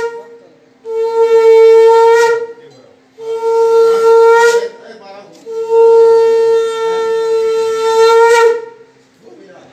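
Conch shell (shankh) blown in three long, steady, even-pitched blasts, the last the longest at about three seconds, sounded at the close of the aarti.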